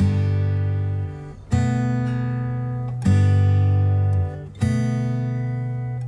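Background music: acoustic guitar chords strummed about every second and a half, each left to ring and fade before the next.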